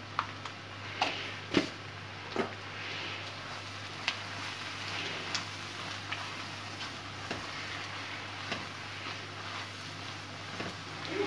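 Oil sizzling in a nonstick wok while a silicone spatula stirs the frying onion-and-tomato masala, scraping and tapping against the pan. The sharpest taps come in the first few seconds, then lighter ones.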